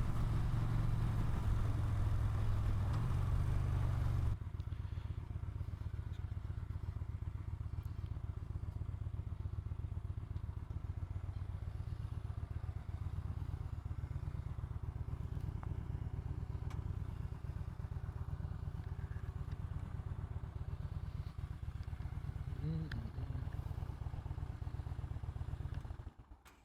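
2017 Yamaha Bolt's air-cooled V-twin: riding with wind noise until about four seconds in, then running steadily at a low, even beat, and switched off just before the end.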